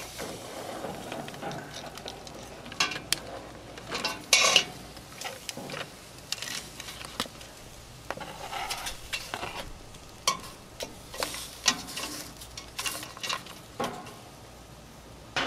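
Metal tongs clacking and scraping against a plastic cutting board and a stainless steel pot as raw blue crabs and shrimp are pushed off the board and drop into the pot, in irregular knocks and clatters. Under them runs a steady hiss from the steaming pot.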